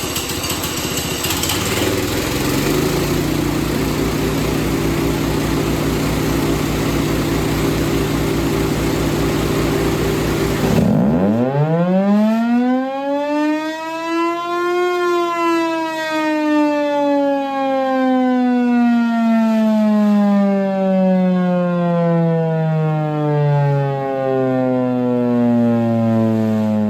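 Federal Thunderbolt 1000 mechanical siren with its blower running: about eleven seconds of a loud, steady rushing noise with a hum. The rushing stops suddenly and the siren's tone climbs steeply to its peak over about four seconds, then winds slowly down in pitch.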